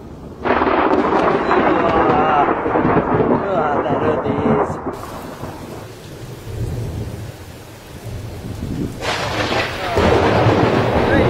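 Loud thunder over falling rain. The first peal breaks suddenly about half a second in and rumbles for about four seconds. A second loud peal starts about nine seconds in.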